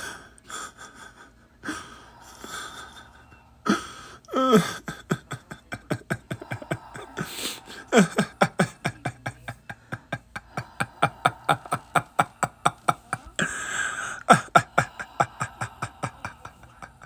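A person's voice gasping and breathing hard: a few scattered breaths, then from about four seconds in a fast, rhythmic run of short gasps at about three or four a second, broken by a few short falling groans.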